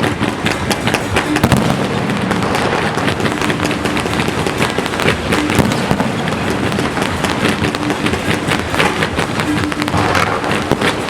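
Aerial fireworks display: a continuous, dense barrage of crackling and popping bursts, many per second with no pause.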